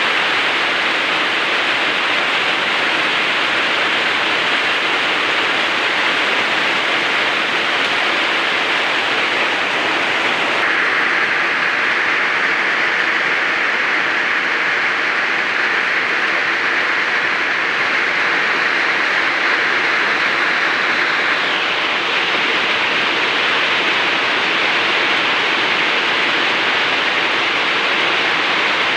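Steady heavy rain falling, a continuous even hiss. Its tone shifts slightly about eleven seconds in and again about twenty-one seconds in.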